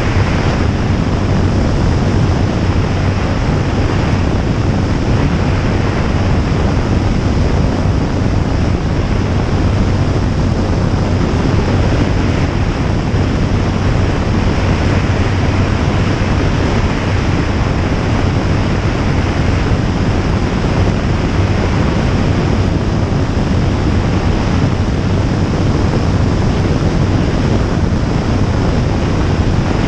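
Jabiru J160 light aircraft in steady flight: its four-cylinder engine and propeller droning at a steady low pitch under heavy wind rush across the camera's microphone.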